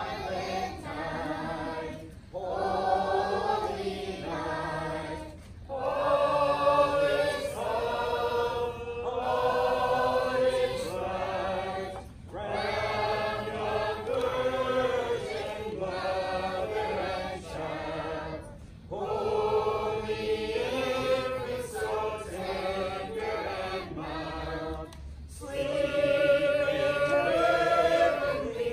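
A group of carolers singing a Christmas carol together without instruments, in long phrases with short breaks for breath.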